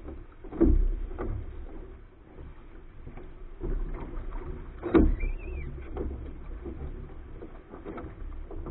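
Wind buffeting the microphone and water rushing along the hull of a Soling keelboat under sail, a steady low rumble, with two sharp thumps on deck, about half a second and five seconds in, and a brief high squeak just after the second.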